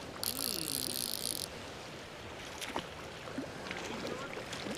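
Creek water running steadily, with a brief high hiss lasting about a second near the start and a few faint ticks later.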